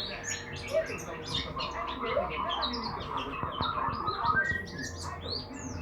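Birds chirping and twittering in a dense stream of short, overlapping high calls, with no pause.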